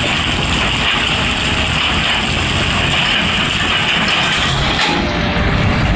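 Excavator's diesel engine running steadily under load, a continuous dense rumble with a hiss-like band higher up.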